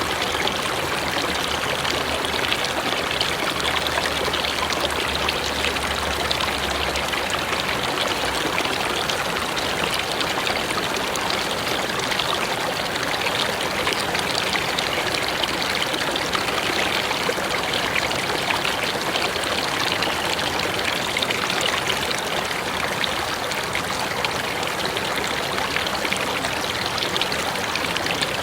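Mountain river running over rocks: a steady rushing and splashing of water.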